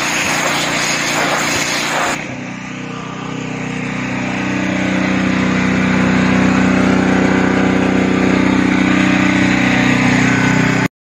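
BlackStone B-PW 11/230 petrol pressure washer running, its 224 cc four-stroke engine driving an Annovi & Reverberi pump. For about the first two seconds the high-pressure jet hisses against a wooden plank. The jet then stops and the engine runs on with a steady hum that grows louder over the next few seconds, until the sound cuts off abruptly near the end.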